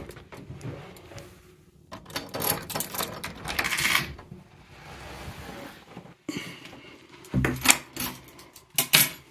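A door key on its keyring jingling and scraping as it is pushed into a brass door-knob lock and turned, followed by a few sharp clicks and knocks near the end as the door is handled.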